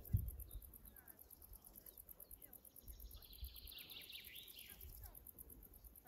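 Faint outdoor ambience: low wind rumble on the microphone, with a few faint bird chirps in the middle.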